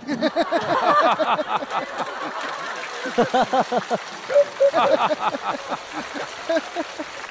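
Studio audience laughing, many voices together, after a stand-up punchline, easing off toward the end.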